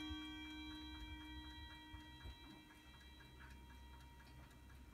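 Weimar Uhren movement of a Lenzkirch-cased wall clock: the ringing of its last strike fades away over the first two seconds, leaving the faint, steady ticking of the movement.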